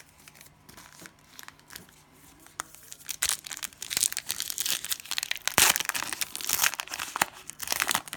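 Cellophane wrapper of a trading-card cello pack crinkling and tearing as it is opened: a few light clicks at first, then dense crinkling from about three seconds in.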